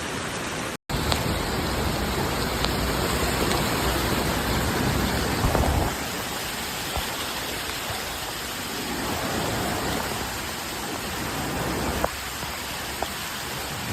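Heavy rain pouring steadily, a dense, even hiss of water, broken by a brief dropout about a second in and marked by a few faint sharp knocks.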